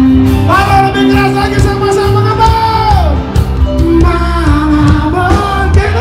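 Live pop-rock band performance: a voice holds long sung notes over heavy bass and drums, each held note sliding down in pitch as it ends, about three seconds in and again at the end.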